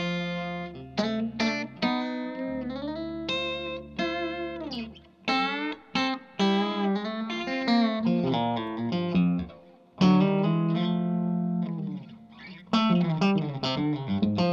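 Electric guitar, a Reverend Eastsider played through a Sound City SC20 20-watt 6V6 valve amp with delay, playing a lead line of single notes and chords with string bends and vibrato. The playing thins out briefly, then a loud chord is struck about ten seconds in.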